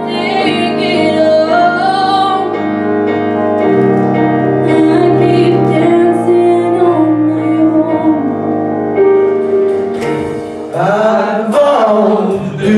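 A woman singing a song live into a handheld microphone over instrumental accompaniment of held chords, with long, wavering sung notes. Near the end the vocal changes as a man's voice takes over the song.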